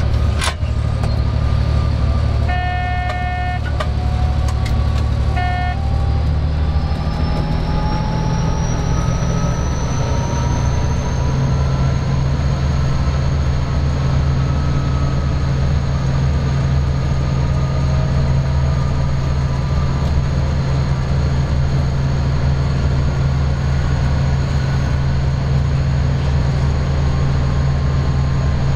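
Vossloh G 1206 diesel locomotive running under way, heard from inside the cab: a steady low engine hum with a whine that rises in pitch for several seconds and then holds. Early on come two short horn-like toots, the first a little over a second long, the second brief.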